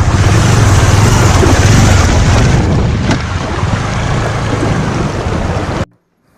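Loud rushing of water and wind buffeting the microphone over a low rumble, with one sharp click about three seconds in, cutting off abruptly near the end.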